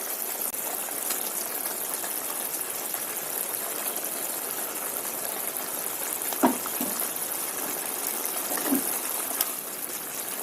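Vegetable and tomato marinade simmering in a pan on a gas stove, a steady bubbling hiss. A few light knocks come about six and a half and nine seconds in.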